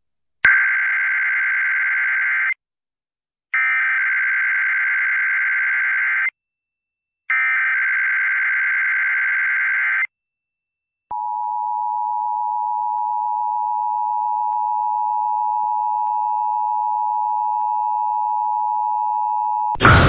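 Emergency Alert System Required Monthly Test broadcast over FM radio: three bursts of the SAME digital header, each a buzzing warble of data tones about two to three seconds long with a second's silence between, then the EAS attention signal, a steady two-tone note held for about nine seconds.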